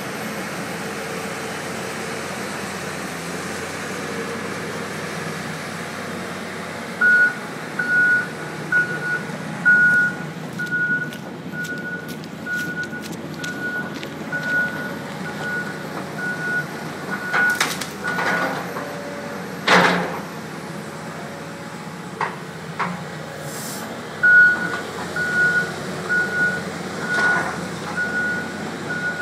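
Caterpillar excavator's travel alarm beeping at one steady pitch, about one and a half beeps a second, over a steady engine and rushing floodwater. The beeping starts several seconds in, stops for a few seconds past the middle, then resumes, with a few sharp knocks in between.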